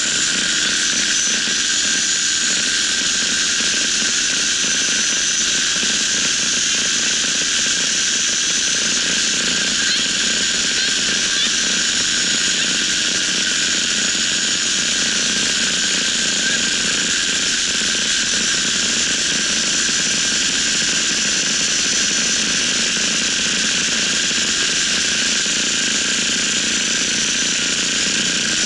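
Paramotor trike's engine and caged propeller running steadily in cruising flight, an even drone with no change in pitch.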